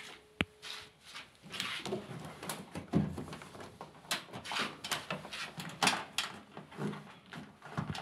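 Gloved hand rummaging inside a washing machine cabinet: irregular knocks, clicks and rustles of plastic and metal parts being handled, with a sharp click about half a second in.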